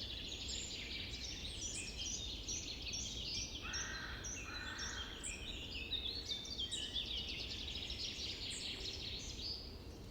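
A chorus of several birds chirping and trilling in quick, high notes, with two lower calls about four seconds in.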